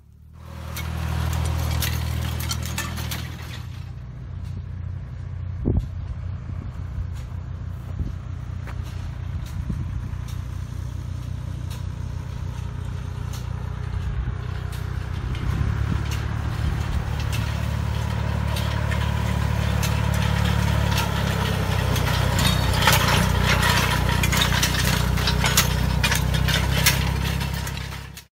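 Tractor engine running steadily while the Kadıoğlu EKO sensor-controlled tree-row hoe's blade attachment churns through soil and weeds, with crackling and ticking that grow louder in the second half. The sound cuts off suddenly near the end.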